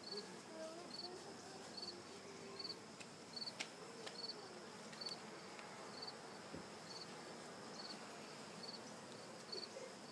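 Honey bees buzzing around an open hive, a wavering hum, while a cricket chirps steadily a little more than once a second. A couple of faint clicks come as wooden frames are worked loose and lifted out.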